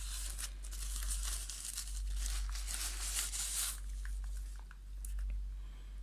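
Translucent plastic wrapping bag crinkling and rustling as it is pulled off a boxed TV box, dense for about four seconds. Then it eases into a few light clicks and taps as the box is handled, with a steady low hum underneath.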